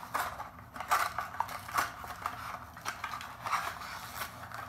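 A Hot Wheels blister pack being pried open by hand: stiff clear plastic and card crinkling and crackling in irregular snaps.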